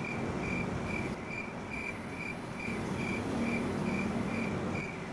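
A cricket chirping at an even pace, a little over two chirps a second, over a low steady hiss.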